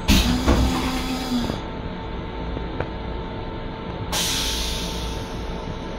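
Stainless-steel toilet of an M7 commuter railcar flushing: a sudden loud rush with a short hum under it that fades over about a second and a half, then a second steady hiss starting about four seconds in. A steady hum from the railcar sounds underneath.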